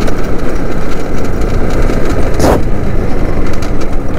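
Motorcycle engine running as the bike is ridden slowly, heard as a dense steady rumble. A short sharp noise cuts in about two and a half seconds in.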